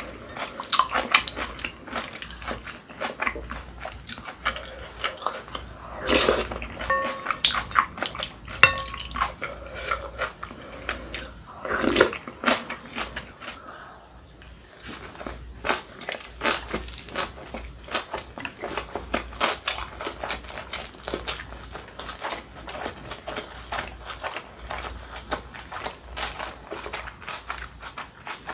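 Close-up eating sounds: a person chewing kimchi, noodles and kimbap, with a steady run of small wet clicks. Louder noodle slurps come about six and twelve seconds in.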